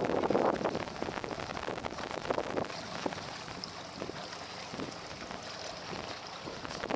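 Wind buffeting the microphone: an uneven rushing noise, loudest in the first half-second, then lower with short gusts.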